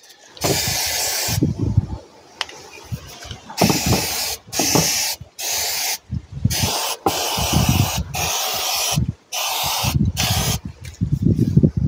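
Aerosol brake cleaner hissing from the can in a series of bursts, each up to about two seconds long, with short pauses between. It is being sprayed onto a drum brake's wheel cylinder and shoes to wash off dirt, so the cylinder can be checked for brake-fluid leaks.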